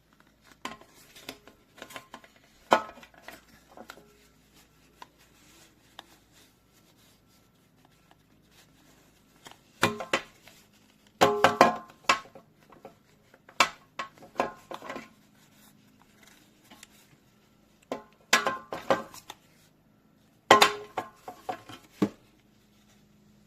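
Hard objects being handled: irregular clicks, knocks and clatter with a short ring, coming in several bursts separated by quiet stretches.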